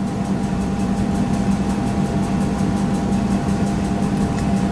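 Steady machine hum with a constant low tone and a fainter higher tone over an even background noise.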